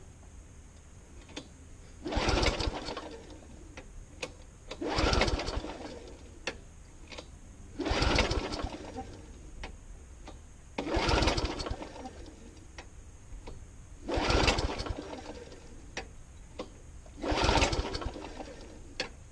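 Walk-behind lawnmower's petrol engine being pull-started six times, about every three seconds. Each pull is a short whirring rattle of the recoil starter turning the engine over, and the engine does not catch: a hard-starting mower that is having more choke tried on it.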